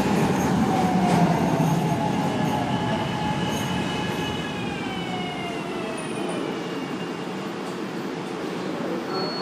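A Market-Frankford Line train pulling into the station and slowing to a stop: wheels rumbling on the rails under a motor whine that falls in pitch over the first six seconds, then settles into a steady hum. A brief high tone sounds near the end.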